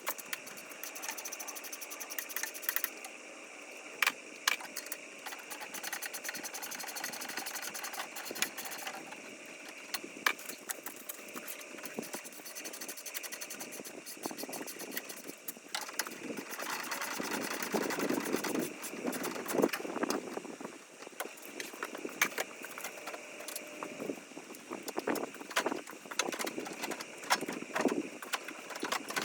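Hand tools and bolts clicking and clinking against metal parts, with scattered knocks and rattles, during disassembly work.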